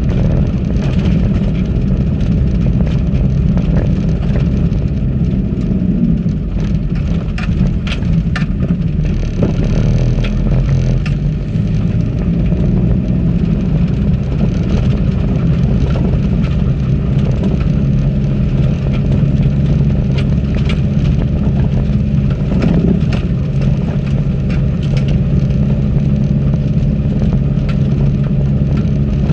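A 4x4's engine runs steadily under load while its tyres crunch along a rough gravel track, heard from inside the vehicle. Scattered sharp clicks and knocks, bunched in two spells, come from stones and the bumpy surface.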